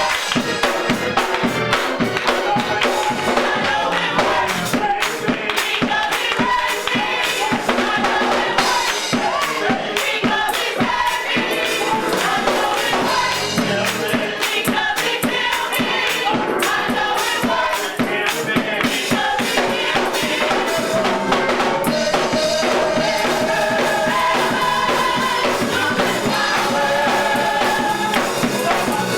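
Gospel choir singing, with percussion keeping a steady beat under the voices.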